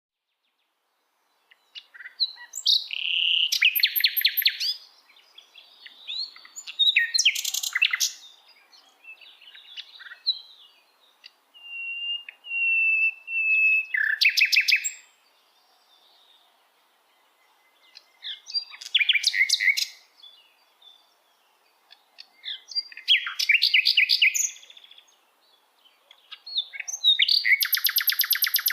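Bird song: about seven separate bursts of fast, high chirps and trills a few seconds apart, with a thin drawn-out whistle near the middle.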